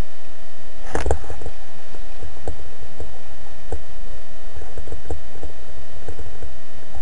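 A steady hum over a constant noisy rush, with irregular short knocks scattered through; the first and loudest comes about a second in.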